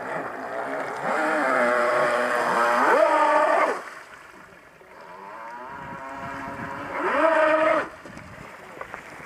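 Electric motors of a radio-controlled powerboat whining under throttle. The pitch climbs and then drops as the throttle is eased about four seconds in. A second short burst about seven seconds in rises and falls again, with a quieter whine in between.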